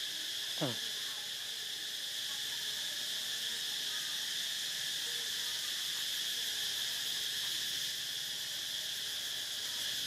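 Steady high-pitched insect chorus. A little over half a second in, one short sound slides steeply down in pitch.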